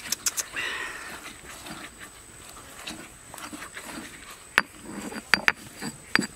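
Pestle pounding fresh red chilies in a stone mortar. A few sharp knocks come at the start, then softer mashing, then a run of sharp knocks against the stone near the end.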